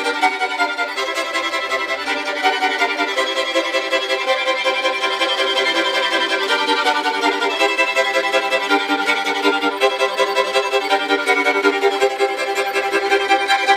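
Violin bowed with the bow hair popped off the frog and wrapped around the instrument, so that all four strings sound at once as chords. The bowing pulses in a quick, steady rhythm.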